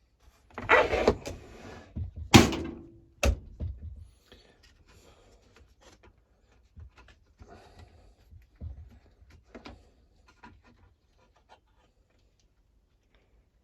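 Parts of a petrol hedge trimmer being handled during reassembly: a burst of scraping and rustling, two sharp knocks about two and three seconds in, then quieter scattered clicks and fiddling.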